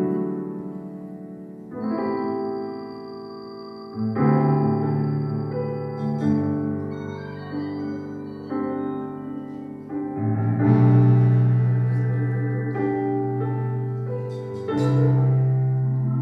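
Piano playing slow, held chords, a new chord struck every two seconds or so and each one fading before the next.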